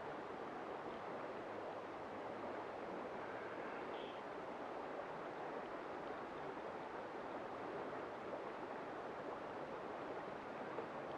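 River water rushing steadily past close by, an even wash of flowing current.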